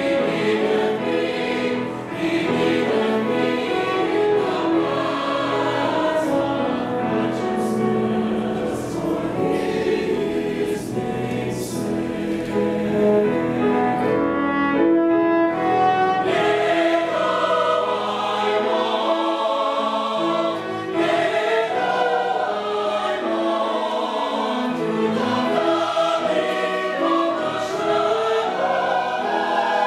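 A mixed choir of men and women singing, accompanied by piano.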